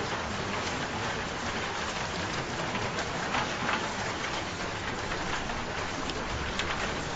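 Steady rain falling: an even hiss with scattered sharper drop hits.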